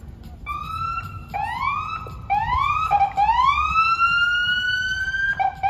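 Emergency-vehicle siren whooping: a run of rising sweeps, each climbing and then holding its pitch, with one long held sweep near the end.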